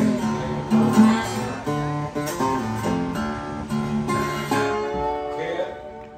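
Background music: a song with strummed acoustic guitar, getting quieter near the end.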